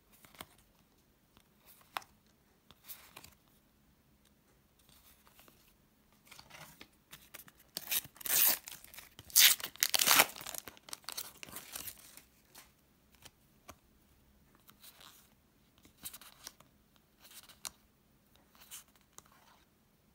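Panini sticker packet torn open by hand, a loud crackling rip lasting a few seconds in the middle. Before and after it come soft rustles and flicks of stickers being shuffled.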